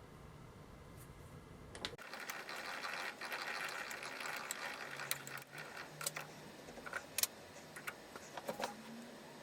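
Mechanical clattering with many sharp clicks, starting abruptly about two seconds in after a quiet hum.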